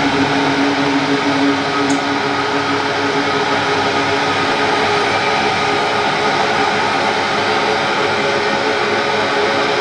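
Electric hydraulic pump motor of a car lift, switched on and running steadily to raise the car, with a constant hum over the whine of the pump.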